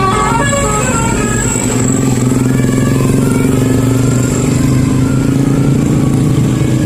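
Bus engine running with a steady low drone that firms up after a couple of seconds, with background music playing over it. The sound cuts off abruptly at the end.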